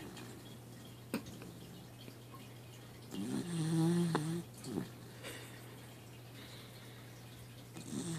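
A sleeping dachshund snoring: one long pitched snore a little after three seconds in, with softer breaths before and after. A faint steady hum runs underneath.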